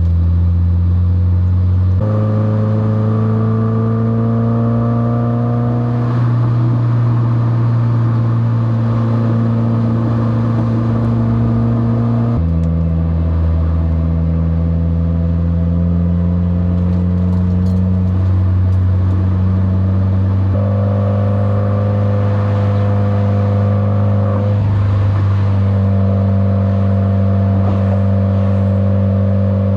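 2021 Subaru WRX's turbocharged flat-four engine droning steadily with road noise while driving, its pitch jumping abruptly three times and creeping up in places.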